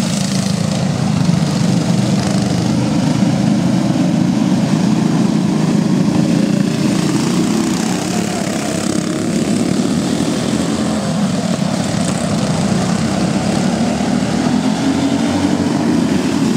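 Several go-kart engines, Briggs & Stratton Raptor small single-cylinder four-strokes, running together as the pack laps a dirt oval: a loud, steady drone.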